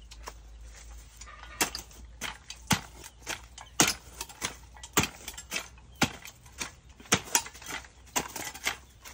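Manual clamshell post-hole digger being driven into bare earth again and again, a sharp thud about every half second to second, starting about a second and a half in.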